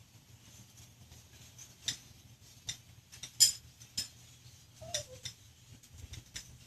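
A large flock of birds calling in trees and on the ground: scattered short, sharp chips and clicks at irregular intervals, the loudest about halfway through, with one brief lower note a little later.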